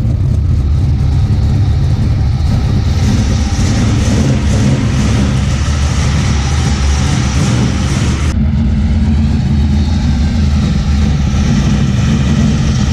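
Carbureted Dodge V8 in a Toyota GT86 drift car running steadily, a loud deep rumble. The higher hiss over it drops away suddenly about eight seconds in.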